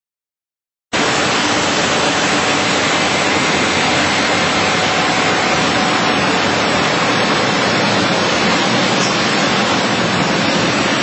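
Steady, loud rushing air noise of a Busellato CNC router's integrated dust extraction as the automatic unloader sweeps the nested-based table clean. It starts abruptly about a second in.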